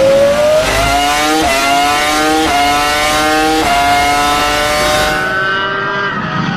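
Williams BMW Formula 1 car's V10 engine at full throttle, its pitch climbing and then dropping three times about a second apart as it is shifted up through the gears. It then holds a high, steady note that sounds duller near the end.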